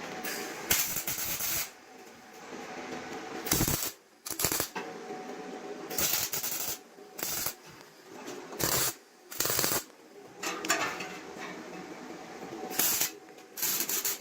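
Woodworking hand tools working wood: a run of irregular scraping strokes, each from a fraction of a second to about a second long.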